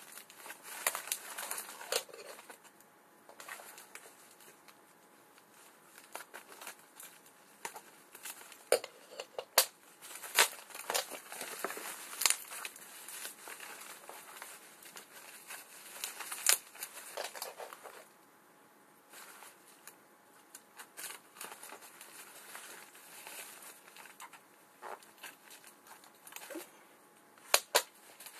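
Plastic packaging being handled: bubble wrap and a padded plastic envelope crinkling and rustling in irregular bursts as they are pulled apart, with a pair of sharp knocks near the end.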